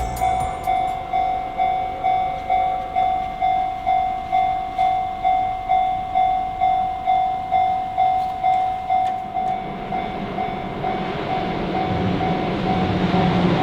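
Japanese level-crossing warning bell ringing steadily at about two strikes a second. From about ten seconds in, a Shin-Keisei Line train grows louder as it approaches and reaches the crossing, its running noise rising over the bell.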